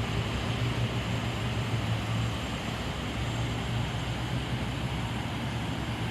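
Heavy construction machinery's diesel engine running steadily with a low drone.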